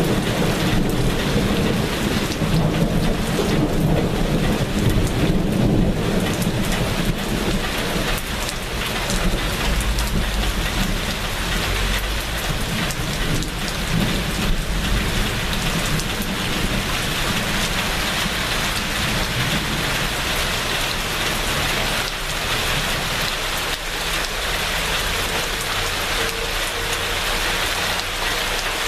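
Steady rain falling, with a low rumble of thunder under it that dies away about twenty seconds in, leaving the rain alone.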